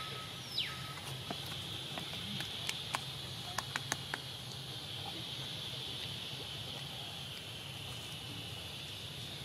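Forest ambience: a steady high-pitched insect drone, with a single falling whistled call about half a second in and a handful of sharp clicks over the first four seconds.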